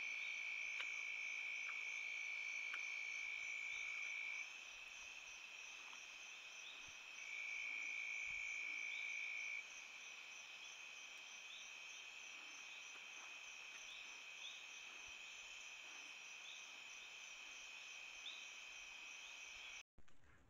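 Night insect chorus: several insects trilling steadily at different pitches, with short chirps repeating about once a second. The loudest, lower trill stops about four seconds in and comes back for a couple of seconds in the middle; the whole chorus cuts off suddenly near the end.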